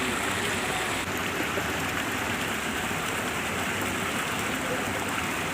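Steady rush of flowing water from a stream running freely, an even, unbroken sound.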